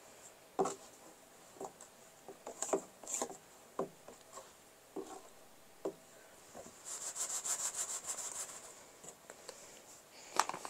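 A hand smoothing and patting sand in a clear plastic tub: scattered soft pats and taps, then about two seconds of quick rubbing strokes across the sand from about seven seconds in.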